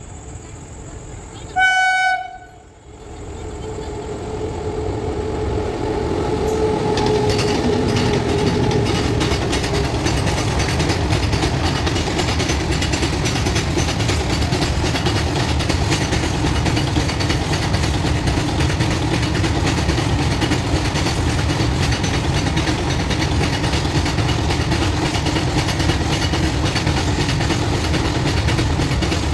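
Goods train giving one short horn blast about two seconds in, then coming on and passing at high speed. The noise builds over several seconds into a steady loud rumble of wagons, with wheels clattering on the track.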